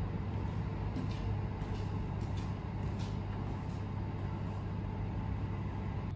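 Steady low machine hum from a retro hamburger vending machine heating a burger, with a few faint ticks a second or two in.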